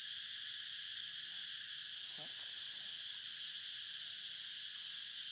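Steady, unbroken forest insect chorus, a continuous high shrill buzz. A faint brief voice-like call is heard about two seconds in.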